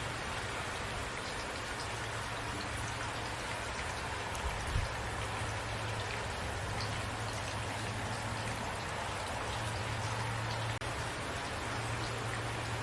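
Steady rain falling, an even hiss with scattered drops ticking on a surface, under a low rumble, with one soft thump near the middle.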